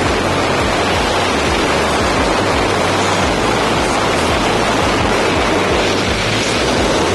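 Loud, steady rush of wind buffeting the camera microphone: the slipstream at a jump plane's open door and then in tandem-skydive freefall.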